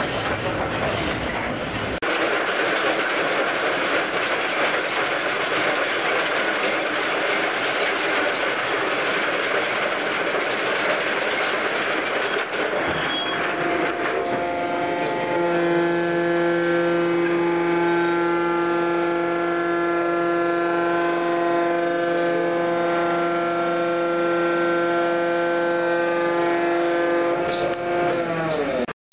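A loud steady rushing noise, then a coal-mine tunnelling machine's electric drive starts about halfway through. Its hum and whine rise to speed and run steadily, then drop in pitch as it winds down near the end.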